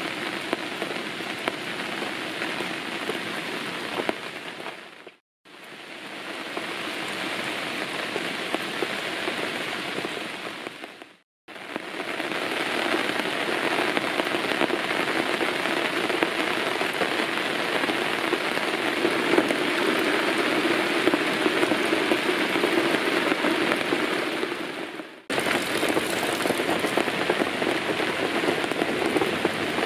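Steady rain falling, a dense even patter, heard in several stretches separated by brief dips to silence about five, eleven and twenty-five seconds in.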